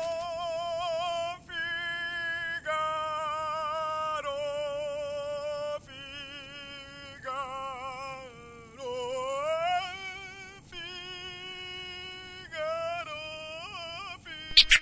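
Music from a vinyl record playing on a Technics turntable: a single singing voice holding long notes with vibrato. About two-thirds of the way through, the pitch sags and then slides back up.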